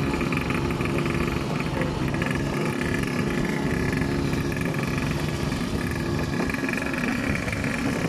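Small 49cc pocket bike engine running steadily.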